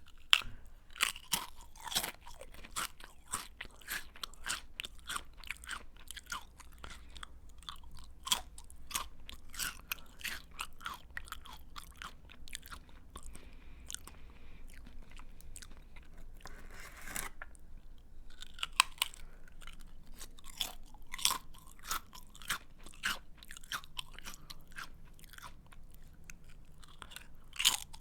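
A person chewing a crunchy snack close to the microphone: a run of crisp, irregular crunches, a few a second, with a brief pause just after the middle.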